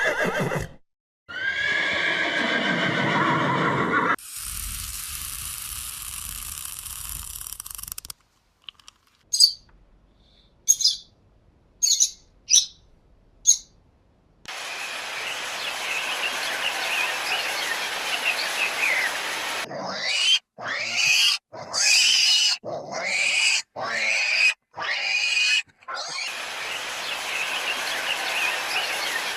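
A run of different animal calls cut abruptly one after another: a drawn-out falling call near the start, then a series of short sharp calls, then bird-like chirping with several louder separate calls.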